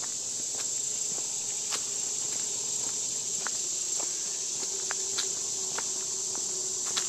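Steady high-pitched insect chorus from the summer woods, with a walker's footsteps on a dirt path, a little under two steps a second.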